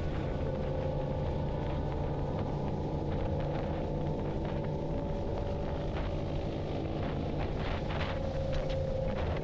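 Motorcycle running on the road, heard as a steady engine drone with a faint whine over a heavy wind rumble on the microphone. A few short sharp cracks come in the last third.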